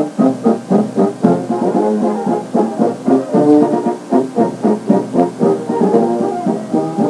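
Filarmônica brass band playing a brisk tune in short, evenly spaced notes, from an old cassette recording with no deep bass.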